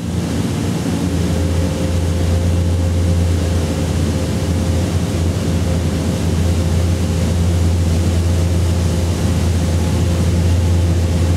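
383-cubic-inch small-block Chevy V8 on an engine dyno, running steadily at low speed after a power pull: a steady low drone with a noisy rush over it.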